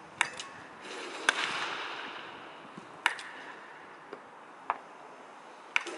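Wooden baseball bat hitting balls in soft-toss batting practice: five sharp cracks roughly a second or more apart, with a couple of fainter knocks between them.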